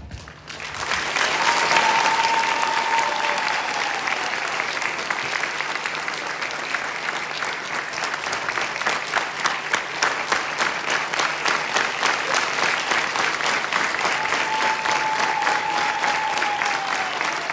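Audience applauding in a theatre hall, the clapping swelling in about half a second in as the music stops, with two faint falling whistle-like tones within it.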